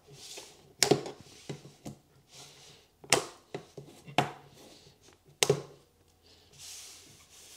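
Hard plastic 3D-printed mould sections being pulled apart and set down on a table: a series of sharp knocks and clacks, about five, spaced a second or so apart, with a soft sliding rustle near the end.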